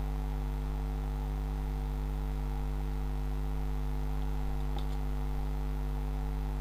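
Steady electrical mains hum, with a faint click about five seconds in.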